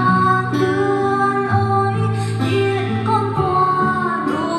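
A young girl singing karaoke into a Shure UGX20 wireless microphone, over a backing track, both played loud through loudspeakers. She holds long notes that change about every second.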